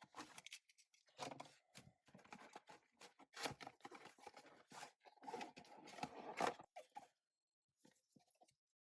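Packaging being torn open and handled: irregular tearing, crinkling and scraping that stops about seven seconds in.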